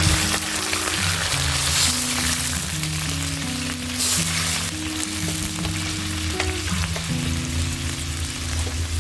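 Food sautéing in hot oil in a pan, a steady sizzle, with background music playing under it.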